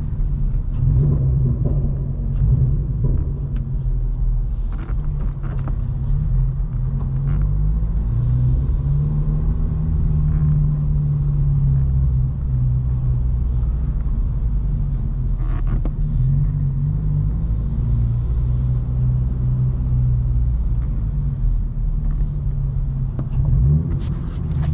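Toyota GR86's 2.4-litre flat-four through a Borla S-Type exhaust, heard from inside the cabin while driving: a steady, low engine and exhaust note.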